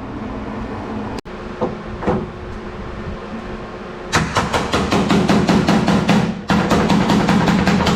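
A steady low noise, cut off briefly about a second in; then, about halfway through, heavy rock music with a fast, steady drum beat starts and carries on.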